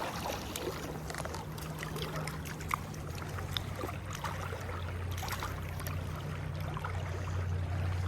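River water flowing and trickling, with scattered small splashes over a steady low rumble that grows slightly louder in the second half.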